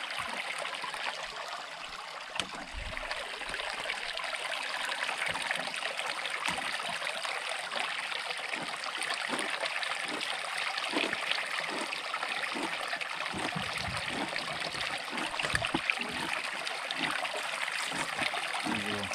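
Steady rush of a flowing river, with scattered soft low thumps.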